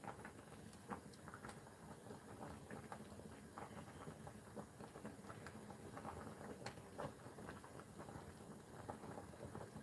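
Faint, scattered soft ticks and patter from a pot of doenjang jjigae being stirred with wooden chopsticks as it cooks on a portable gas burner.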